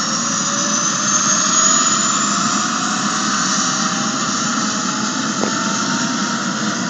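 Eurocopter AS365 Dauphin II helicopter's twin turboshaft engines running with the main rotor turning on the ground: a loud, steady rush of turbine and rotor noise with a high turbine whine that rises in pitch over the first couple of seconds.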